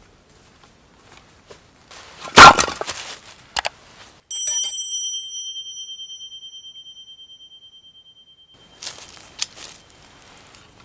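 A loud clatter, then a metal object struck once and ringing with a clear, high, bell-like tone that fades slowly over about four seconds, followed by handling and rustling near the end.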